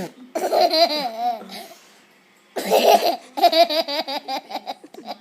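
A small child laughing in two bouts, the second breaking into a quick run of short ha-ha pulses. He is laughing at someone making farting noises.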